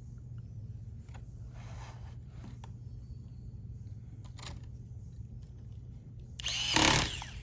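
Faint ticks and light scrapes of small laptop parts being handled over a steady low hum, then one louder scraping rattle lasting under a second near the end.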